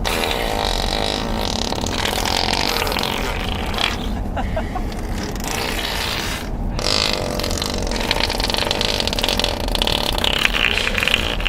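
Steady road rumble inside a moving car, with children making mouth fart noises over it, mainly in the first couple of seconds and again from about seven seconds on.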